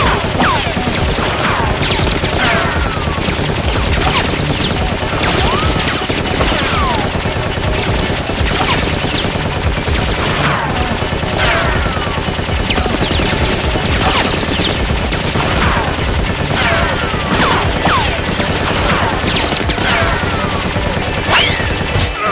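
Sustained heavy gunfire, many shots overlapping without a break, with short falling whistling sounds cutting through again and again.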